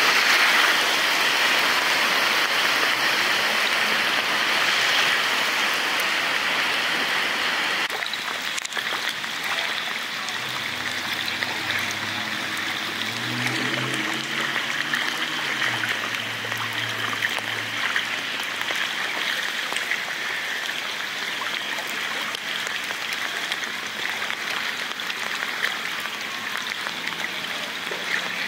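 Heavy rain pouring down onto a flooded street, a steady hiss of rainfall and running water that drops a little in level about eight seconds in. In the middle a low vehicle engine hum rises and falls under the rain for several seconds.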